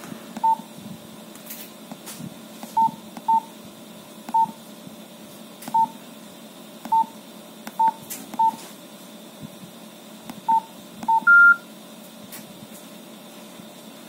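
Nokia Asha 210 keypad tones: ten short beeps at one pitch and uneven spacing as menu keys are pressed, then one longer, higher beep near the end as a profile setting is confirmed and saved.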